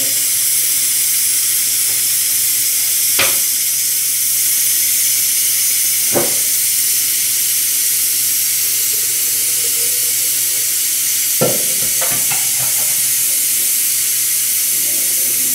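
Chile-and-tomato salsa with pork ribs sizzling steadily in a hot pot. A few sharp knocks, like a metal spoon against the pot, come about three, six and eleven to twelve seconds in.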